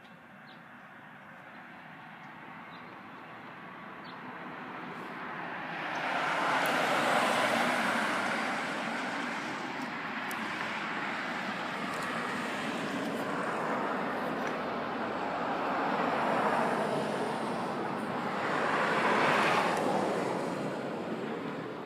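Road traffic: cars passing one after another, the rush of tyres and engines swelling as each goes by and fading again. The loudest passes come about a third of the way in and again near the end.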